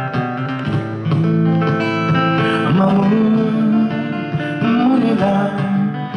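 Steel-string acoustic guitar strummed, with a man singing held notes that slide in pitch over it.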